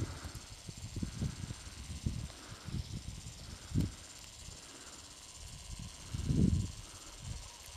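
Low, uneven thuds and rustling of someone walking through moorland heather and rough grass, with wind buffeting the microphone and a faint steady hiss underneath. Two stronger rumbling thumps come a little before the middle and near the end.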